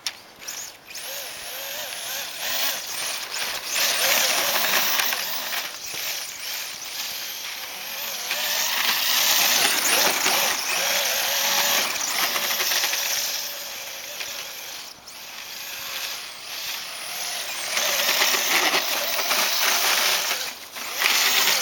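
Electric motor and gearbox of an Axial AX10 radio-controlled crawler whining as it drives, the pitch wavering up and down with the throttle. It swells and eases several times, loudest in three stretches.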